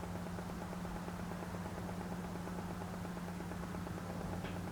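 Steady low electrical hum with an even hiss from powered bench electronics, with a faint tick near the end.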